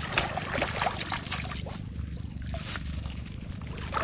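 Shallow lake water sloshing and splashing in small irregular bursts as someone wades through it, over a steady low rumble.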